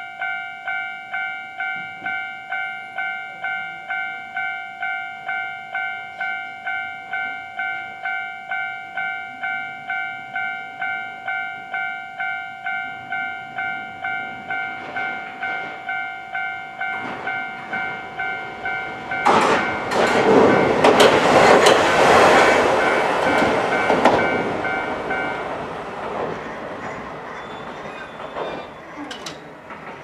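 Japanese level-crossing warning bell ringing, about two strikes a second. About two-thirds of the way through, a Hankai Tramway tram rolls over the crossing: a loud rush of wheel-on-rail noise that swells and then fades. The bell stops as the tram passes.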